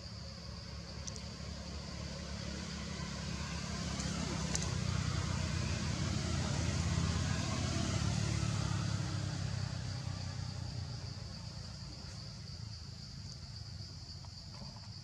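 Low engine rumble of a motor vehicle passing, swelling to its loudest in the middle and fading away, over the steady high-pitched buzz of insects.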